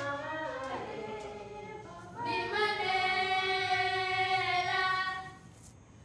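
Group of women singing together: a short sung phrase, then one long held note from about two seconds in that fades away about a second before the end.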